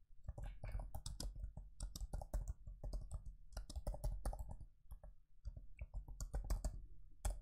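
Typing on a computer keyboard: a quick, uneven run of key clicks, with a short pause about five seconds in.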